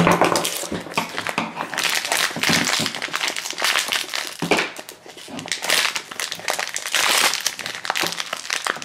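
Crinkly plastic blind-bag wrapper crinkling and rustling unevenly as hands pull and tear it open, with a sharp knock right at the start.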